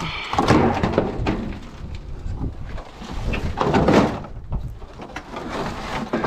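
Tin sheets being lifted and dragged, scraping and rattling in two bursts: one about half a second in and another just before the four-second mark.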